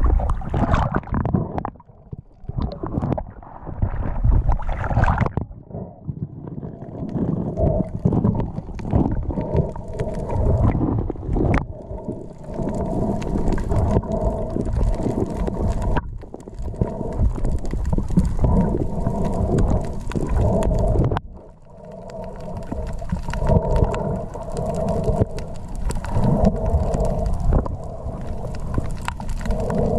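Water splashing around a camera at the sea surface for the first few seconds. Then a continuous muffled underwater rumble and sloshing, picked up through a waterproof action camera, with a wavering hum running through it.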